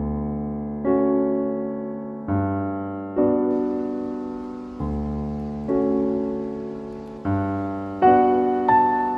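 Background piano music: slow, soft chords struck about once a second, each left to ring and fade, with a higher melody line coming in near the end.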